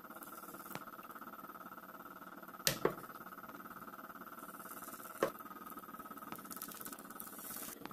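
A metal spoon clicking against a granite-coated mini cake mold as batter is spooned into its cups. There are two sharp clicks close together about three seconds in, another a little past five seconds, and fainter taps between, over a faint steady hum and a short hiss near the end.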